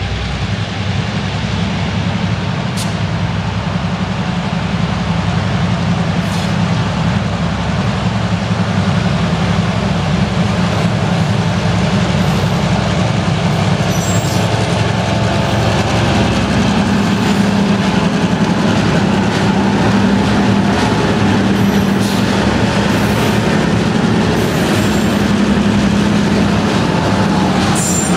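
Several diesel switcher locomotives working together, their engines running under load as they haul a coke train close past. It is a steady low drone that grows louder over the first several seconds as the locomotives approach, then holds.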